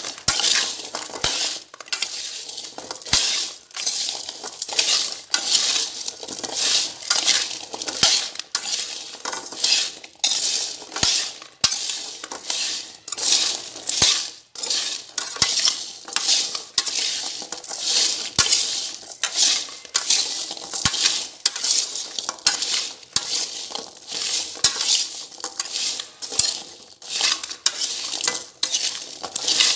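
A metal spatula scraping and stirring chestnuts and coarse salt in a wok, in repeated strokes about once a second, the nuts and salt grains rattling and crunching against the pan. This is dry-roasting chestnuts in salt, stirred constantly so they cook evenly.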